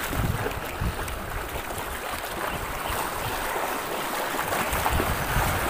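Sea water sloshing and lapping against the side of a small boat, a steady wash of water noise with low buffeting thumps.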